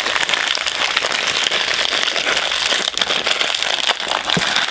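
Plastic packaging crinkling and crackling continuously as it is handled and pulled open, made of many small rapid clicks.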